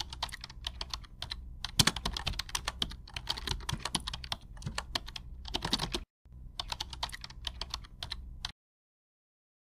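Typing sound effect: rapid key clicks as title text is typed on letter by letter, with a brief break about six seconds in, stopping about eight and a half seconds in.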